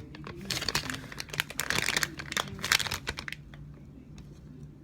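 Plastic packaging crinkling as a foam squishy is squeezed inside it. The crinkling is dense for about three seconds, then dies down near the end.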